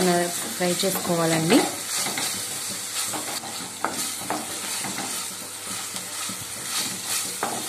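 Onion masala with green chillies and curry leaves sizzling in hot oil in a kadai, stirred and scraped round the pan with a wooden spatula, with a few light scrapes and taps of the spatula on the pan.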